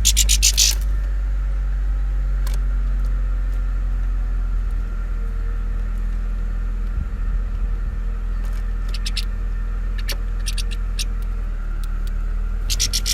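Small finches giving short bursts of high twittering calls a few times, over a loud steady low hum like an idling vehicle engine.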